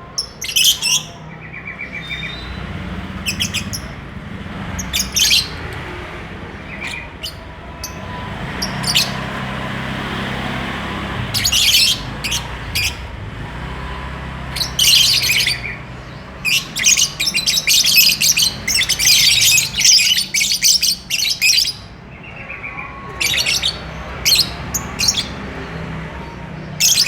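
Lovebirds chirping and chattering in short shrill bursts, coming thickest in a rapid run about two thirds of the way through, over a low steady rumble.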